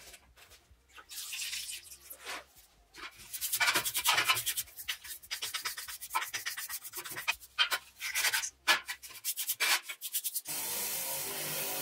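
Stiff brush scrubbing a rusty metal part, in quick back-and-forth strokes of scraping noise. Near the end a steady power-tool whir cuts in.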